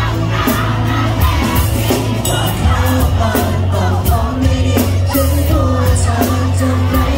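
Live band performing a Thai pop song, a male lead singer singing into a microphone over bass, keyboards and a steady beat.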